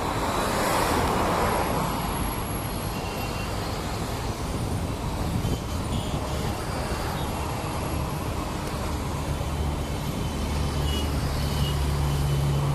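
Road traffic noise: vehicles passing, with one swelling past in the first couple of seconds. A low steady engine hum comes in near the end.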